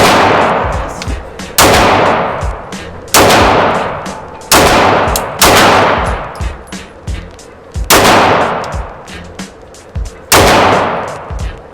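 Seven shots from a 9mm pistol, a CZ Tactical Sport Orange, fired at an uneven pace over about ten seconds. Each shot is followed by a long decaying echo.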